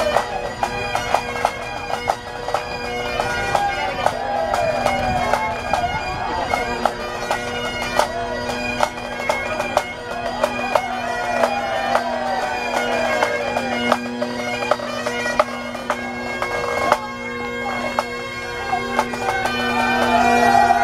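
Bagpipes playing a tune with fast ornamented notes over steady drones, with frequent sharp taps or clicks alongside.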